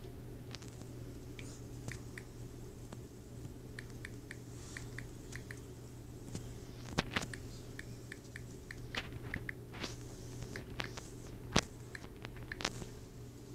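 Key-press clicks from a tablet's on-screen keyboard as words are typed, coming in quick irregular runs, with a few louder sharp taps among them, over a steady low hum.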